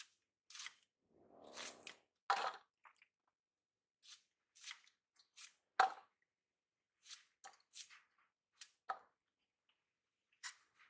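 Fresh bamboo shoot being cut into chunks against a knife blade, with the pieces dropping into a steel bowl: irregular short, crisp cuts and clicks, and a softer rustle about a second in.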